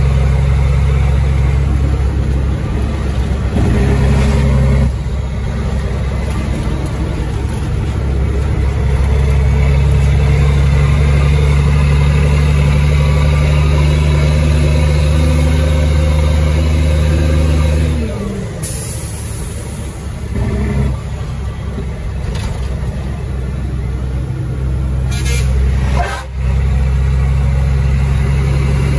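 Caterpillar 3306 diesel engine of a 1999 Ford Sterling truck running hard and steady. About eighteen seconds in the revs fall away and it runs quieter and rougher, then it picks back up to a steady pull near the end.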